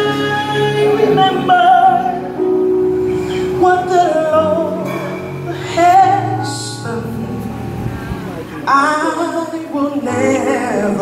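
A woman singing a slow gospel worship song solo into a microphone, drawing out long phrases with a wavering, ornamented pitch, over sustained instrumental chords.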